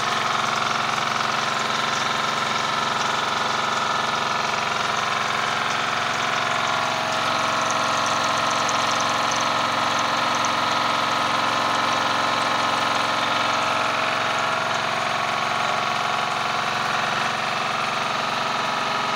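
Triplex plunger pump driven by an electric motor running steadily under test: a continuous, even mechanical drone with a hiss over it.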